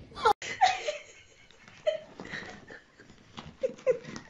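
A person laughing in short, scattered bursts of giggling.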